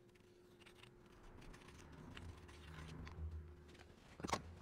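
Quiet workshop handling sounds over a faint low hum, with one sharp knock near the end.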